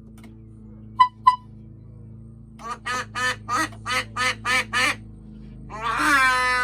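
Two short, sharp high-pitched beeps about a second in, then a quick run of about seven duck quacks, roughly three a second, and a long drawn-out quack falling in pitch near the end.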